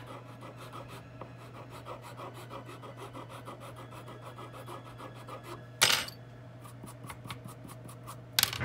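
A small file scraping the cane blade of a bassoon reed in quick, light, even strokes, thinning the blade a little at a time. About six seconds in, a sharp clatter as the file is put down on the wooden desk, and another near the end.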